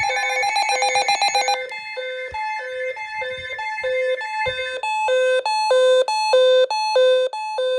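Electronic alert alarm tones of the kind that precede a severe weather warning. A fast warbling beep runs for about the first second and a half, then a steady repeating beep, then from about five seconds in a louder two-pitch beeping that alternates low and high notes quickly. It cuts off at the end.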